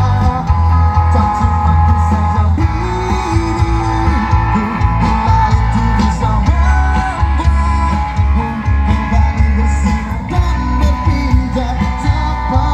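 Amplified music with singing from a line-array PA system, four boxes per side, heard from about 100 metres away, with heavy bass.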